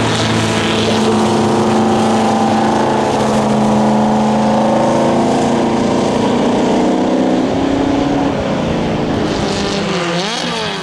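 Classic racing car engines running hard at speed on a wet circuit, with a steady deep engine note. Near the end the engine pitch swings quickly up and down as a car revs through a corner.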